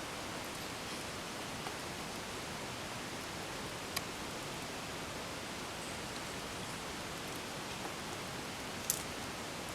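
Steady even hiss of background noise, with two brief clicks, one about four seconds in and a sharper one near the end.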